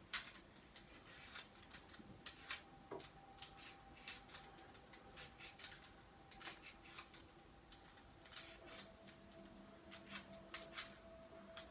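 Faint, irregular scraping strokes of a vegetable peeler taking the skin off a potato, with a faint steady hum underneath.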